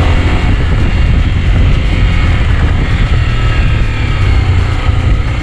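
Motorcycle running while riding, under a heavy, steady low rumble.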